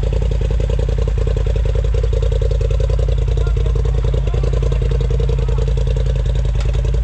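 Off-road vehicle's engine idling steadily, with an even, unchanging beat.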